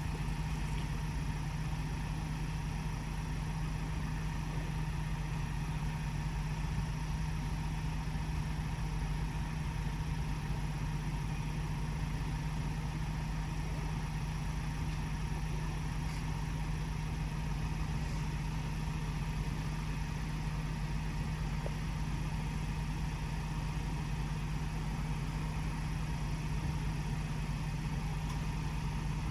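An engine idling steadily, a constant low hum with a faint steady higher tone above it.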